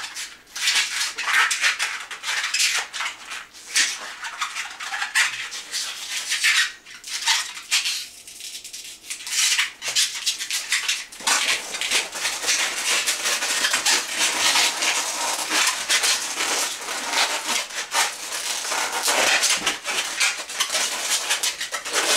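Latex 260 modelling balloon squeaking and rubbing as it is twisted by hand, a dense run of squeaks and scrapes that eases off briefly around eight seconds in.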